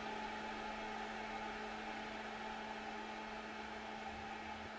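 Power supply fan of a Snapmaker 2.0 A350 running steadily with a low hum, a bit on the loud side, as the machine boots.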